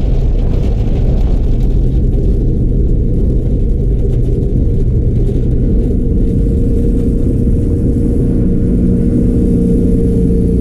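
A bus running along a road, heard from inside: a steady, loud low rumble of engine and road noise.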